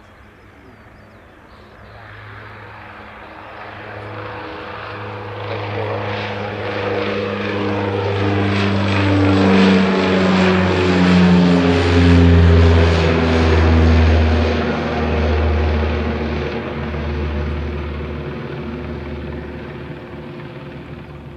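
Turboprop airliner flying close past, its propeller drone growing louder, peaking about halfway, then fading as the propeller tones drop in pitch.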